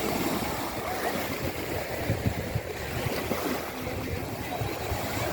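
Sea water sloshing and splashing, with wind buffeting the microphone.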